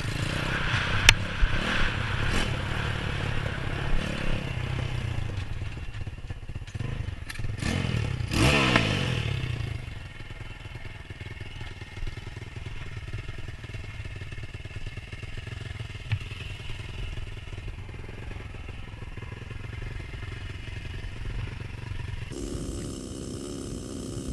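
Pit bike engine running while riding a rough dirt trail, with clattering knocks over the first few seconds and a rev that rises and falls about eight seconds in. Then the engine settles to a steady, quieter idle.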